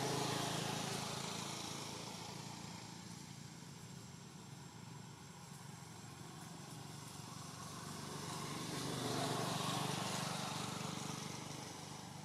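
Motor vehicles passing by on a nearby road: a low engine hum and road noise swell and fade at the start, then a second vehicle swells and fades again about nine seconds in.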